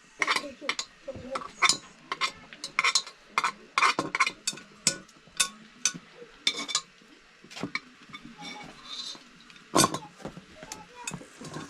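Utensils and metal dishes clinking and knocking in quick, irregular taps during food preparation, with farm animals calling in the background.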